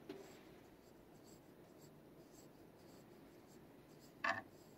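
Faint, scratchy rubbing as the plastic brush tip of a back scratcher strokes a cat's fur, with one brief louder sound about four seconds in.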